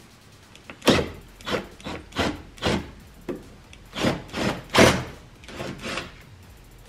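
A cordless drill with an extension bit backing out the top bolts of a truck's tow-mirror mount, run in about ten short, unevenly spaced noisy bursts over five seconds.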